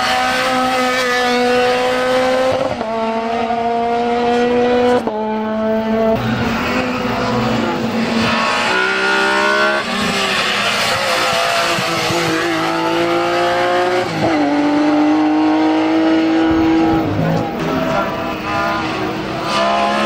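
Race cars accelerating hard uphill past one after another, a Renault Clio and then a BMW 3 Series E36. Each engine climbs in pitch and drops sharply at each upshift, every two to three seconds.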